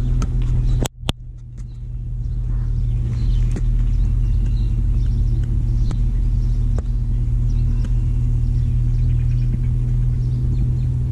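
Steady low engine drone with an even hum, cutting out abruptly for a moment about a second in.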